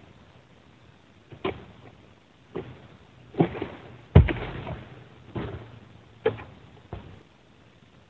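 Repeated sharp chops of a long-poled harvesting sickle (egrek) hacking at an oil palm's frond stalks, roughly one a second, with one heavier thud a little past the middle.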